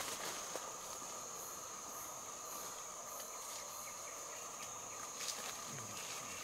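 Equatorial forest insect chorus: a steady high-pitched drone with a lower, steady tone beneath it, and a few faint clicks.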